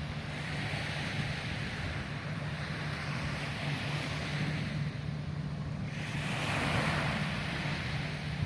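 Sea waves washing in, swelling twice about five seconds apart, over a steady low rumble of wind on the microphone.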